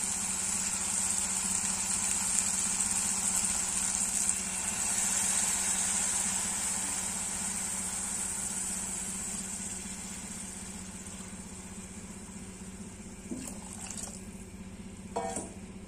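Water poured from a steel tumbler into a hot pressure cooker of sautéed rice and peas: a steady hiss that slowly fades, over a steady low hum. A few light knocks near the end.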